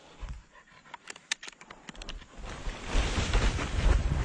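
Leaves and branches rustling as someone pushes through dense brush, building from about halfway through into a loud rustle with a low rumble of wind or handling on the microphone. A few sharp clicks come about a second in.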